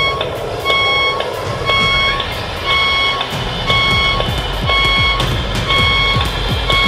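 Beier USM-RC-2 sound module playing a truck's reversing beeper through a small Visaton FRS 7 loudspeaker: a half-second beep about once a second over a simulated diesel engine running. A rising whine sounds in the first couple of seconds, and the engine rumble grows heavier about halfway through.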